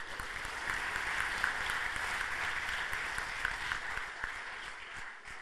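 Audience applause: many people clapping. It starts suddenly and fades away near the end.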